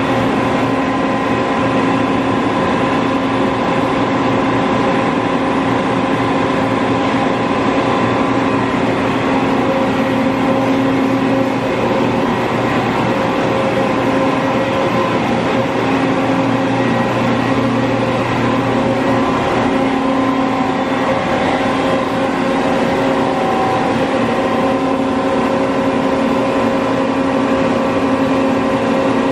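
FEMCO BMC 110R2 CNC horizontal boring mill running under power: a steady, loud mechanical hum with several held tones. The deepest part of the hum drops away about twelve seconds in.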